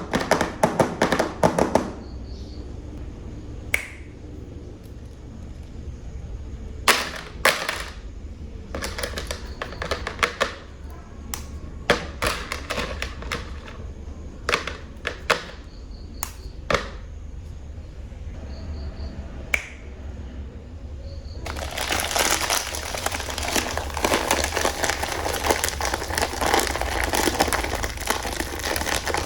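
Plastic animal toy figures being handled, giving scattered clicks and knocks, some in quick clusters. About two-thirds of the way in, a long stretch of dense crinkly rustling begins.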